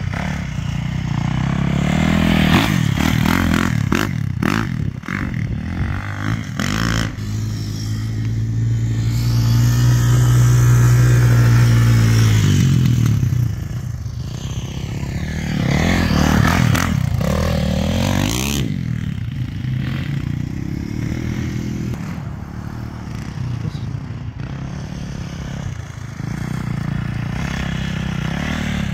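Dirt bike and quad engines running on a sand track, the pitch rising and falling as the throttle opens and closes through the turns. The engine sound is loudest and steadiest from about eight to thirteen seconds in, then revs up and down in quick swoops a little later.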